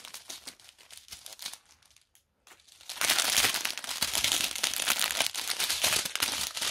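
Clear plastic packets of diamond-painting drills crinkling as they are handled: a few light crinkles, a short pause about two seconds in, then steady, dense crinkling from about three seconds in.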